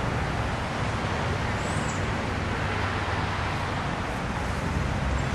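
Steady low rumble with a hiss over it, even throughout, with a faint high chirp about two seconds in.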